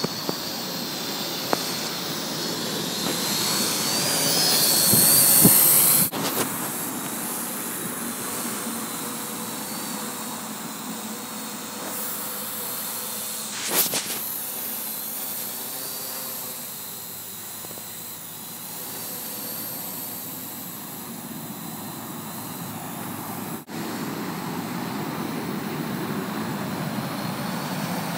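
Parrot AR.Drone 2.0 quadcopter's rotors running with a steady whine and hiss. It swells to its loudest about five seconds in, drops suddenly about a second later, and has a short louder burst about fourteen seconds in.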